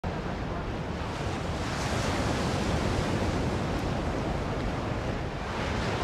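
Ocean surf washing up on a sandy beach: a steady rush of waves.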